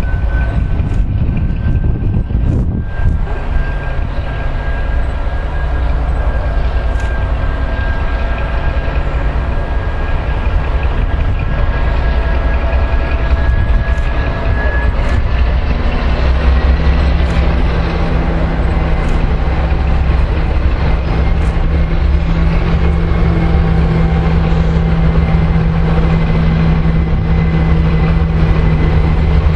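Class 232 "Ludmila" diesel locomotive's V16 engine running as it hauls a loaded freight train in, a deep steady hum with a thin high whine over it, growing louder about halfway through as the locomotive comes closer.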